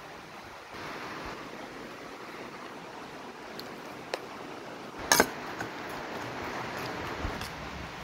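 Eggs being cracked into a steel mixing bowl over a steady hiss: a sharp tap about four seconds in and a louder clatter of taps against the bowl about a second later.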